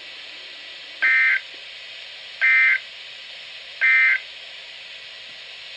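Emergency Alert System end-of-message SAME data bursts: three short, harsh two-tone digital screeches about a second and a half apart, marking the end of the severe thunderstorm warning broadcast. They sound over a steady hiss.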